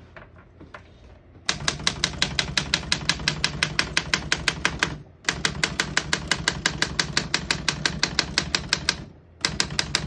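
LC Smith Model 8 manual typewriter typing rapidly and evenly, about ten keystrokes a second. The clicks come in three runs, with short pauses about five and nine seconds in.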